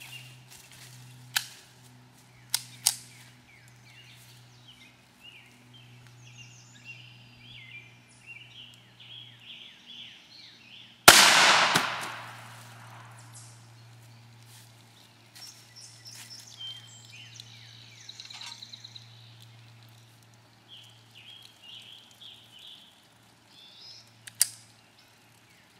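A single .22 LR shot from a Ruger Mark III 22/45 pistol with a 4-inch barrel, about eleven seconds in: a sharp crack that echoes and dies away over about a second. Birds chirp throughout, with a few short sharp clicks before and after the shot.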